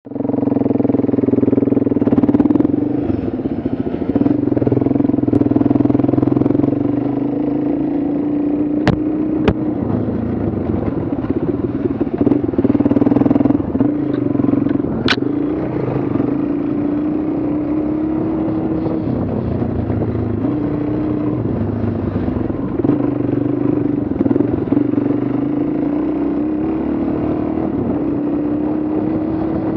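Dual-sport motorcycle engine running under way, its pitch rising and falling with the throttle. A few sharp clicks cut through it: two close together about nine seconds in and one about fifteen seconds in.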